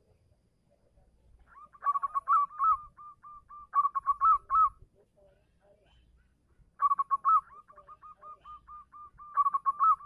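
Zebra dove (perkutut) singing: two bouts of rapid, evenly spaced staccato coos, each lasting about three seconds, the first starting about two seconds in and the second about seven seconds in. This is the song a male uses to call a female.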